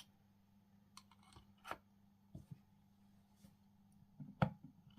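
Faint clicks and taps of an airbrush and its plastic holder being handled, with a sharper click about four and a half seconds in, over a faint steady low hum.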